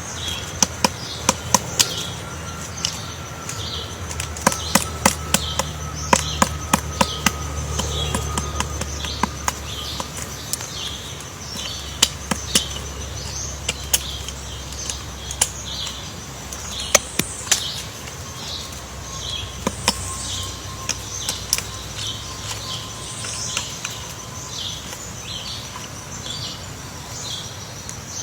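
Woodpecker pecking into wood: sharp, irregular taps, sometimes several in quick succession. Behind it a bird chirps repeatedly, about once a second.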